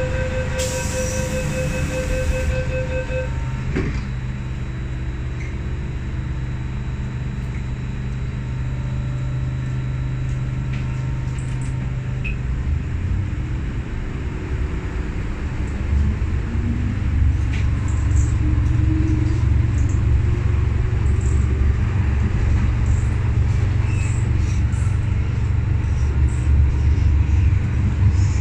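MTR M-Train door-closing warning beeping for about three seconds, then the doors shut with a thud about four seconds in. After a stretch of steady cabin rumble, the train moves off about halfway through: the rumble grows and the traction motors give a rising whine as it picks up speed.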